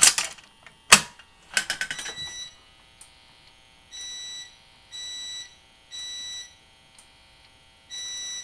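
A fire alarm pull station is pulled with two sharp clacks and a short rattle. A few seconds later a fire alarm horn starts sounding in the temporal pattern: three half-second beeps, a pause, and the next round of beeps beginning near the end.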